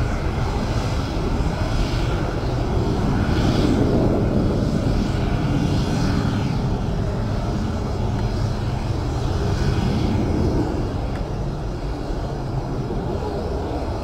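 Fighter jet's engines as it climbs away after takeoff: a loud, steady rumble that swells about four seconds in and slowly fades over the last few seconds.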